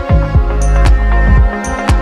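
Background music with a steady beat: deep drum thumps about twice a second over a sustained bass, with crisp high percussion ticks.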